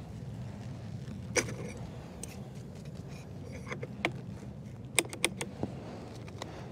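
Sharp metallic clicks and clinks as hive and vaporizer equipment is handled: one about a second and a half in, one about four seconds in, and a quick cluster of three around five seconds in. Under them runs a steady low mechanical hum.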